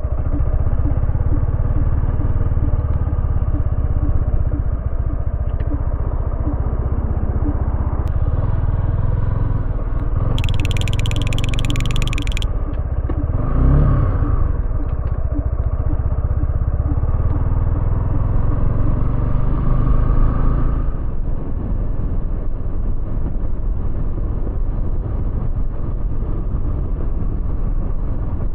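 Suzuki V-Strom 250SX's single-cylinder engine running steadily. A brief high-pitched hiss comes about ten seconds in and lasts two seconds, and a sound rises and falls in pitch near the middle.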